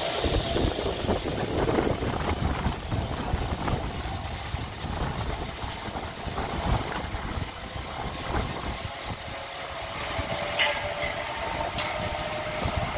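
Zipline trolley running along a steel cable: a steady rumbling whir.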